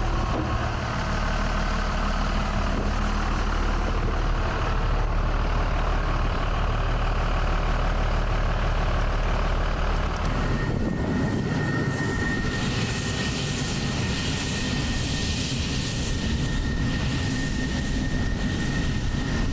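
A diesel aircraft tow tractor idling with a steady low hum. About halfway through it gives way to the steady high whine and hiss of a nearby running jet engine.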